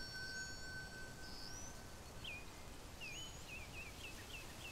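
Faint outdoor ambience with small birds calling: a few short, high, rising chirps, and from about two seconds in a quick run of short hooked notes, about three a second. A faint held tone fades out about two seconds in.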